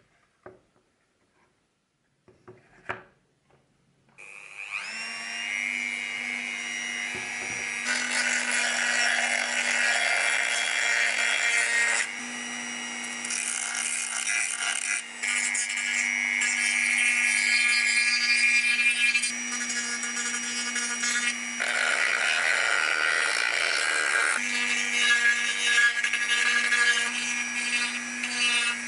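A few faint handling clicks, then about four seconds in a handheld rotary tool starts and runs steadily with a high whine. Its small sanding drum sands the edges of a miniature wooden cabinet, and the sound shifts in texture a few times.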